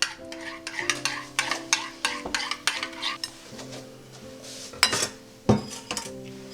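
Kitchenware being handled: a quick run of clicks and clinks of utensils against dishes or a pan, over soft background music with held notes.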